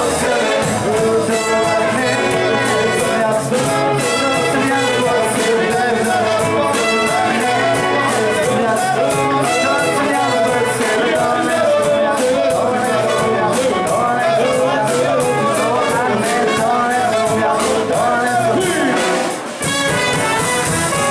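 Live band playing an upbeat song on acoustic guitars, electric bass, drum kit and trumpet, over a steady, fast drum beat. The music drops out briefly near the end, then comes back in.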